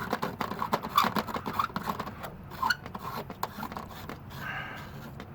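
An LED bulb being screwed by hand into a keyless lamp socket: a quick run of small clicks and scrapes from the threads, easing off after about three and a half seconds.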